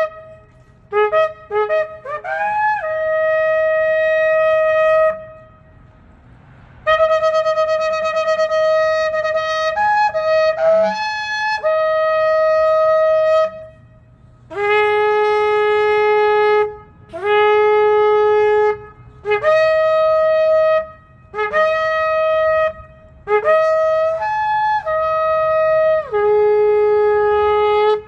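A 34-inch shofar being blown: a few short, quick blasts at the start, then a run of long held blasts that move between a lower and a higher note, some leaping in pitch partway through.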